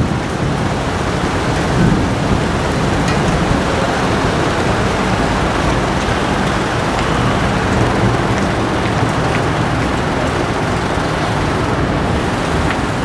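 Steady rain falling, with a low steady rumble underneath.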